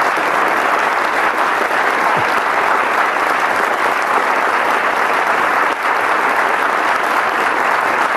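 Audience applauding: a dense, steady round of clapping that keeps going without a break.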